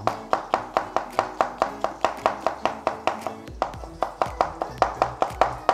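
Background music with a quick, steady percussive beat, about five strikes a second, over held notes.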